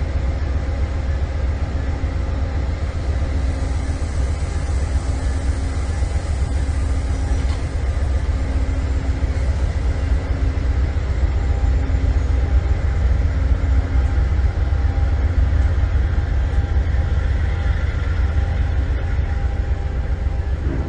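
Train engine running with a steady low rumble and hum, a faint tone swelling and fading about every second and a half.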